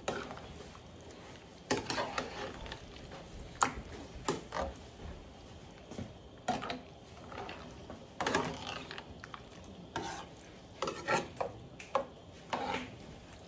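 Metal spoon stirring thick chili in a pan, scraping and clinking irregularly against the pan's sides and bottom.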